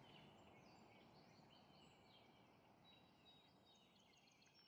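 Faint birdsong: many short chirps and trills over a low, even hiss, the whole slowly fading out.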